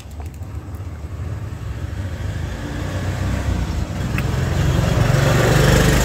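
A motor vehicle's engine running and drawing nearer, growing steadily louder.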